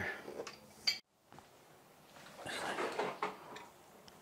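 A single sharp knock about a second in, then about a second of metal scraping and rustling as tongue-and-groove pliers (channel locks) are set on the rusted threaded drain pipe.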